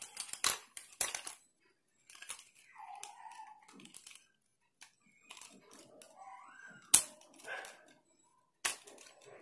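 Xbolt 3120 tripod being handled and its leg sections pulled out: a few sharp clicks and knocks, the loudest about seven seconds in.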